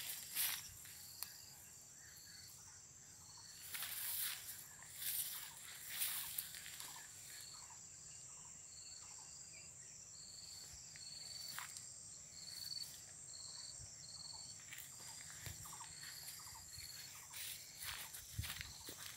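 Footsteps and the rustle of plants brushed in passing, over a steady high insect drone. Through the middle a short high chirp repeats about every two-thirds of a second.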